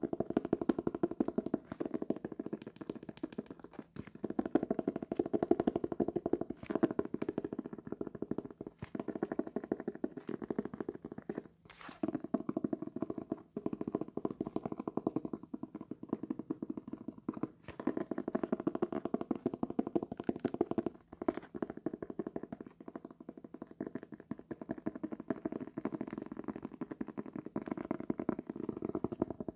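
Teeth of a comb scraped across a sheet of calendar paper, a dense fast run of tiny clicks going on in strokes with a few short breaks.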